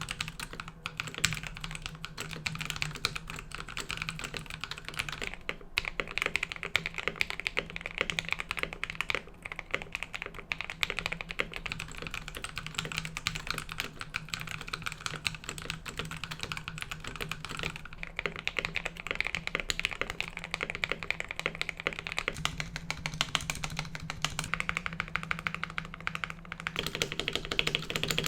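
Continuous fast typing on an RK84 mechanical keyboard fitted with lubed Akko Matcha Green switches, lubed stock stabilizers and foam and tape mods in the case. The keystrokes run as a dense, steady clatter.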